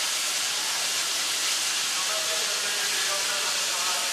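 C61 20 steam locomotive venting steam in a steady hiss, with no exhaust beats.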